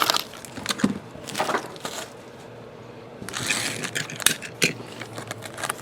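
Trading card box packaging being opened by hand: plastic wrapper and cardboard crinkling and rustling in short bursts, with scattered clicks and taps.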